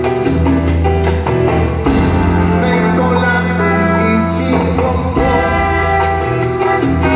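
A big Latin band playing live, with held bass notes and long sustained chords over percussion, heard in a large concert hall.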